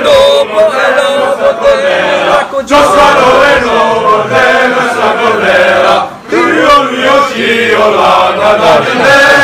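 A group of young men singing a chant together in unison, in phrases broken by short pauses, twice.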